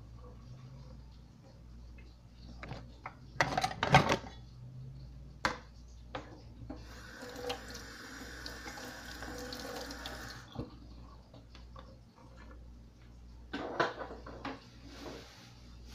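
Kitchen tap running into a stainless steel sink for about three seconds midway. Before and after it come scattered knocks and clatter of things being handled at the sink, the loudest a clatter about four seconds in.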